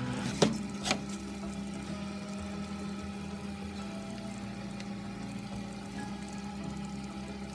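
Eggs and bread slices frying in a pan: a steady sizzle over a low, steady hum. Two sharp clicks come in the first second.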